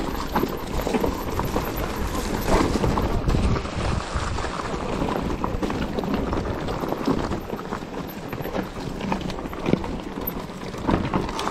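Mountain bike riding down a rough trail: tyres rolling over the ground and the bike rattling, with frequent irregular knocks, under a steady low rumble of wind on the microphone.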